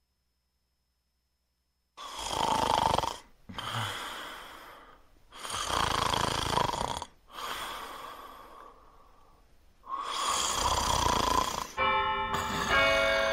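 Loud, exaggerated snoring: three big snores about four seconds apart, each followed by a quieter breath out. Near the end, bell chimes begin ringing.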